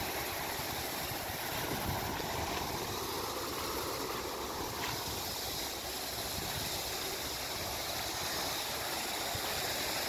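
Sea waves washing against a rocky shore, a steady rush of surf.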